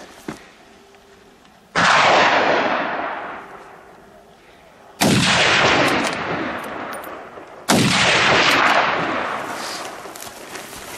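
Three gunshots at wild boar, about 2, 5 and 8 seconds in, each followed by a long echo rolling away across the valley.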